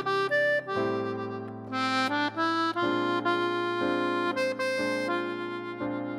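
Instrumental background music: a melody moving over held chords and a steady low drone.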